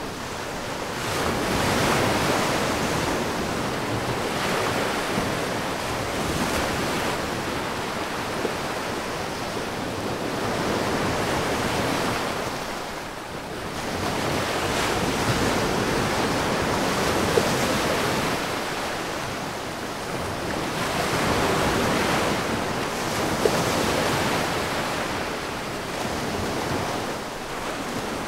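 Sea surf washing against the shore, swelling and easing every few seconds.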